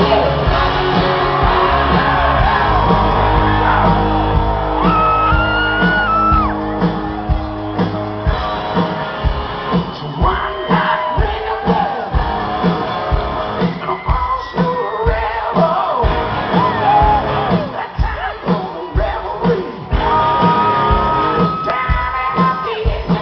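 Live rock band playing loud on a concert stage, with singing, a steady drum beat and long held notes, recorded from inside the audience with shouts from the crowd. The heavy low end thins out about eight seconds in.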